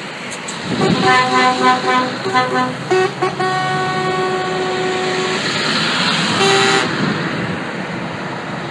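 Lorry air horns blasting as the trucks pass: a string of short honks, then one long blast of about two seconds, and another short honk near the end. Underneath is the steady rumble of passing diesel truck engines.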